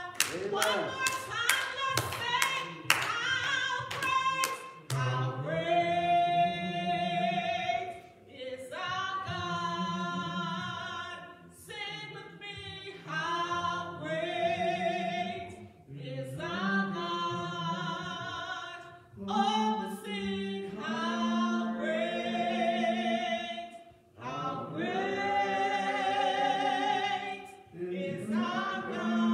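A gospel song being sung in long, held phrases, with hand claps keeping a steady beat of about two a second over the first five seconds.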